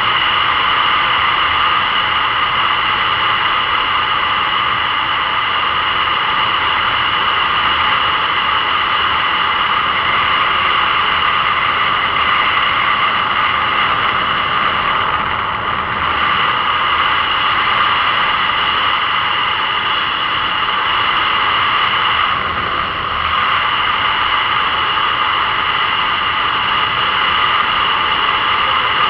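Steady rush of wind and a motorcycle running at cruising speed, picked up by a camera mounted on the bike. The noise eases briefly twice, about halfway through and again some eight seconds later.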